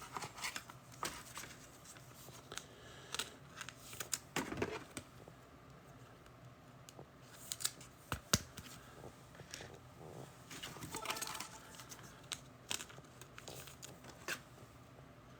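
Trading cards and their packaging being handled up close: scattered light clicks, brief rustles, crinkles and scrapes of card stock and wrapper.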